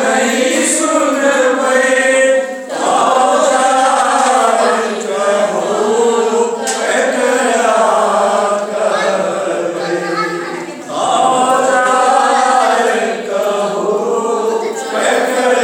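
A group of men and women singing a Maithili devotional bhajan together in a chant-like unison, with short breaks between phrases.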